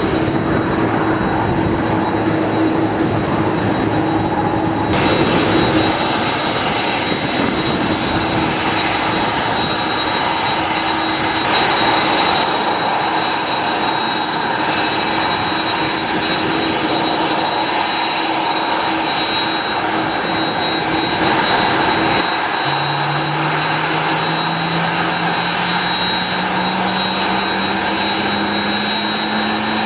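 Boeing 747-400 jet engines running with a steady high whine over a loud rush. In the last seven seconds a low tone rises steadily in pitch as the engines spool up.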